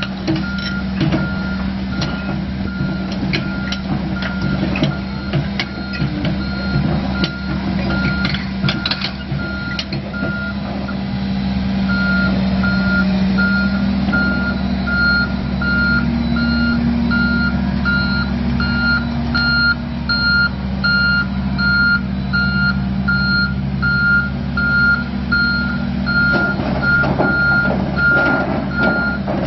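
Casagrande B105NG hydraulic piling drill rig travelling on its crawler tracks: the diesel engine runs under load while the travel alarm beeps at an even pace. Knocks and clanks come through in the first ten seconds, and the engine note rises slightly partway through.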